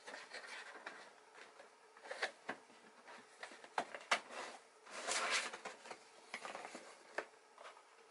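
Cardboard packaging being handled and closed: soft rubbing and scraping with a few light taps and knocks, and a longer scrape about five seconds in.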